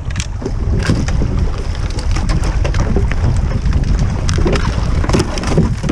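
Choppy river water rushing and splashing around a kayak hull as it is paddled through a riffle, with a steady low rumble of wind on the microphone and scattered short splashes and knocks.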